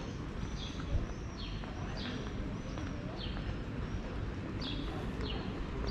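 A small bird calling over and over, short falling chirps about three every two seconds, over low outdoor background noise.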